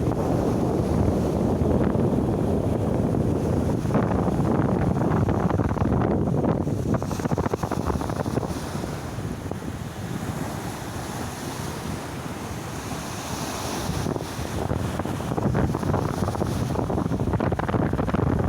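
Black Sea surf washing onto the shore, with wind buffeting the microphone. The surf eases for a few seconds mid-way and then builds again.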